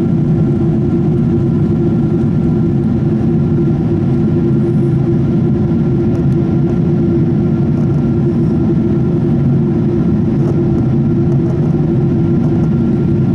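Steady cabin noise of a Boeing 777-200ER in the climb after takeoff, heard inside the cabin: a loud, low drone of jet engines and airflow with a faint constant whine.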